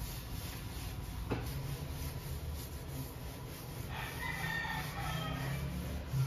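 A cloth wiping a tiled kitchen backsplash, soft rubbing with a light knock about a second in. About four seconds in, a rooster crows once, a call of about a second and a half that falls away at the end.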